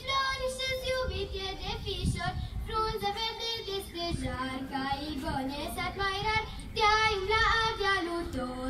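A group of women singing a Romanian folk song together, one melody line moving in long held notes.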